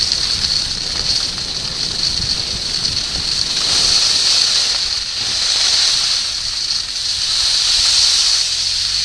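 Skis hissing over packed snow on a downhill run, mixed with wind rushing over the goggle camera's microphone; the hiss swells and eases every couple of seconds.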